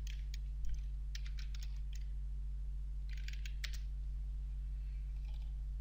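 Typing on a computer keyboard in short quick bursts of key clicks, with a pause of about a second between bursts and only faint taps near the end. A steady low hum runs underneath.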